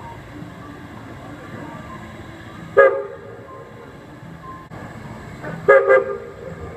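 Steam whistle on the Walt Disney World Railroad's steam locomotive #4, the Roy O. Disney: one short toot, then about three seconds later two toots in quick succession. Two short blasts are the standard whistle signal to release brakes and proceed.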